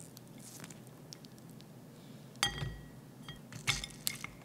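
Chopsticks clinking against a porcelain plate while picking up a piece of fried chicken. There is one sharp, ringing clink a little past halfway, then a few lighter clicks and taps near the end.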